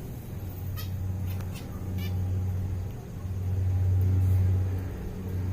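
A low, steady hum that swells and fades, with a few short high chirps of small caged finches in the first two seconds.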